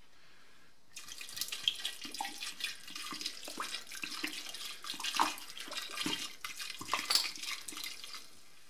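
Yeast starter pouring from a swing-top glass bottle and splashing into a fermenting bucket of diced pumpkin must, starting about a second in. This is the starter being pitched into the must to begin fermentation.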